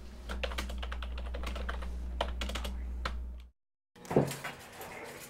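Typing on a computer keyboard: a quick, irregular run of key clicks over a low steady hum. It cuts off abruptly about three and a half seconds in, and after a moment of silence comes a brief, louder sound.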